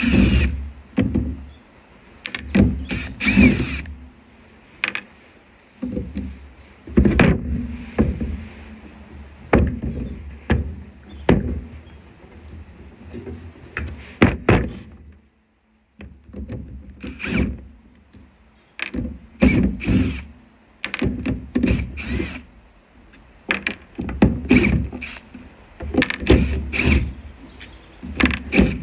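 Irregular knocks and clunks as a cordless circular saw's housing and parts are handled and worked on, with a short gap about halfway through.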